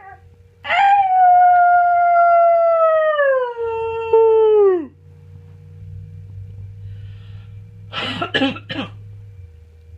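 A long howl, held at one pitch for about three seconds, then sliding down in two steps before breaking off. Near the end come three quick, short, rough sounds.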